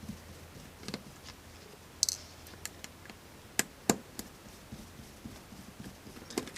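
Scattered light clicks and taps of a Subaru key fob's small plastic case and parts being handled and separated, with one brief scrape about two seconds in and two sharper clicks close together near the middle.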